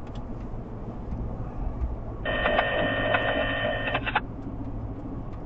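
Low, steady road and engine rumble inside a moving car. About two seconds in, a radio scanner's speaker gives a two-second burst of electronic data tones that starts and stops abruptly.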